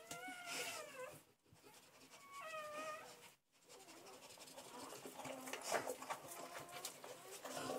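Newborn Saint Bernard puppies crying in short, wavering, high-pitched squeals, twice in the first three seconds. In the second half come wet licking and rustling as the mother licks the pups, with faint cries under it.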